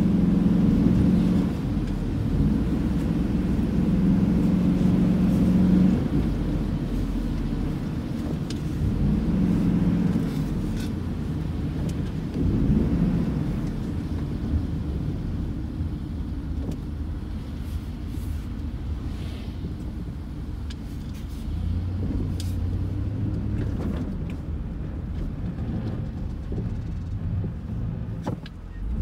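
Road noise inside a moving car: a steady low hum and rumble from the engine and tyres on a wet winter road, its pitch shifting a few times as the car changes speed.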